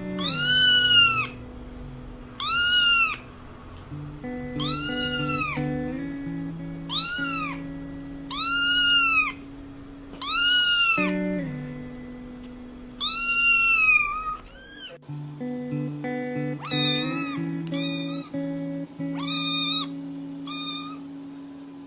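Kitten meowing again and again in high, rising-then-falling cries about a second long, over background music with held chords. About halfway through, the meows turn shorter and come in a quicker run.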